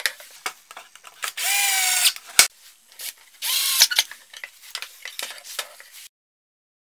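Cordless drill motor whining in two short runs, about a second and then half a second long, as it works against a wooden board. Sharp knocks and handling clatter of tools and wood come between the runs.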